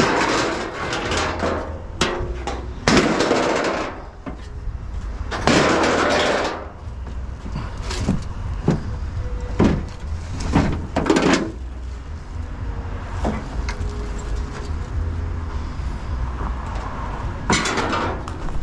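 Scrap car body parts being handled and moved: irregular metal knocks, clanks and short scrapes, over a steady low rumble.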